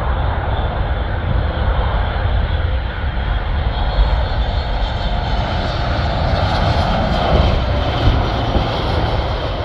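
Jet engines of a Boeing 737 MAX 8 (CFM LEAP-1B turbofans) landing: a steady rushing jet noise with a deep rumble, growing louder and brighter about six to eight seconds in, then easing slightly.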